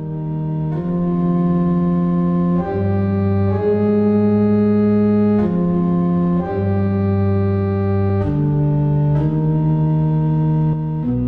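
Organ music: slow, sustained chords held steady and changing every second or two.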